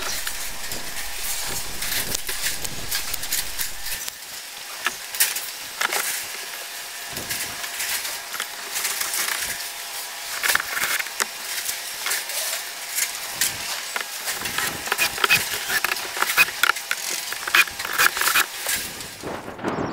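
Clicks and knocks of handling, with a cordless drill driving screws into a plywood hatch top in short runs.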